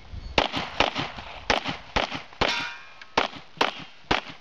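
A Glock pistol firing a string of about nine shots at uneven half-second intervals, with pauses between groups. Some shots are followed by the ring of struck steel targets.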